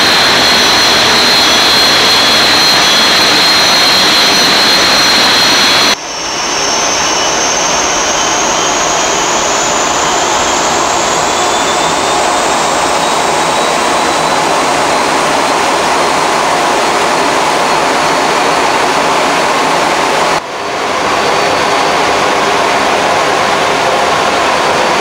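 Orenda 14 axial-flow turbojet running on a test stand: a loud, steady jet rush with a high whine over it. The sound breaks off sharply twice, about six and twenty seconds in, and after the first break the whine slowly rises in pitch.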